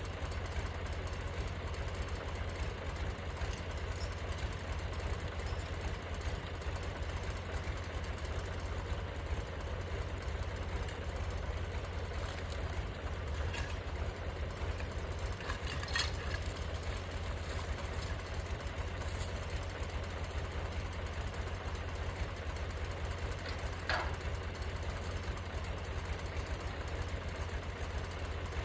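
Engine running steadily at a low idle, with a few faint clicks partway through.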